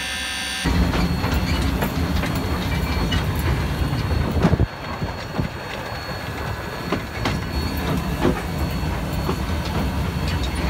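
Small wood-fired Fowler steam locomotive running, heard from its footplate by the open firebox: a steady rumble and rattle of the engine on the rails, with scattered sharp clanks. A steady hum cuts off under a second in.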